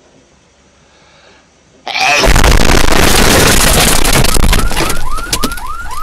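About two seconds in, a sudden, deafening, heavily distorted blast of noise: an ear-rape meme punchline standing in for the hedgehog's sneeze. In the last second or so, short rising chirps repeat about three times a second over it.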